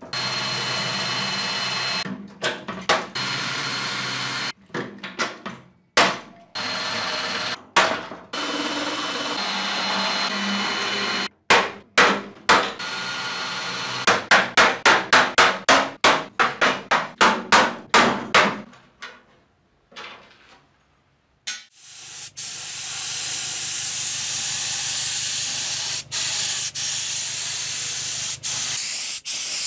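Workshop tool noise in short cut-together bursts, including a quick series of about a dozen sharp strikes, then from about 22 seconds a compressed-air paint spray gun hissing steadily while spraying.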